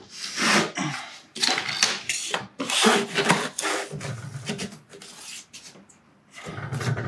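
Thin wooden shims scraping and knocking against the floor and cabinet base as they are slid under a kitchen base cabinet to level it, in short irregular scrapes.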